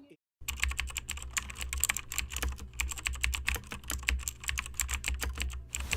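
Rapid, irregular clicking, many clicks a second, over a steady low hum. It starts just after a brief moment of silence.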